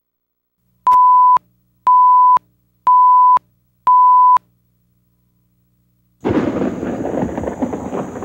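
Countdown-leader beeps: four identical steady beeps, one a second, each about half a second long. About six seconds in, a thunderstorm sound with thunder and rain starts abruptly and runs on.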